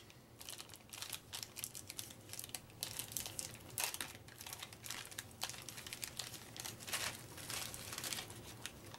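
Thin clear plastic wrapping around a stack of trivia cards crinkling as it is handled and pulled at, in many small irregular crackles.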